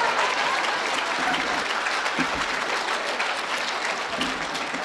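Audience applauding in a hall, a steady dense clapping that begins to fade near the end.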